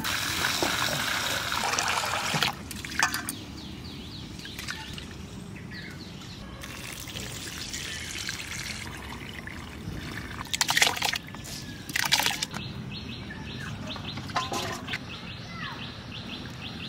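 Raw rice grains pouring from a clay plate into a steel bowl, a dense hiss for the first two and a half seconds. The rice is then rinsed and the cloudy rinse water poured off in several short splashes, with birds chirping faintly behind.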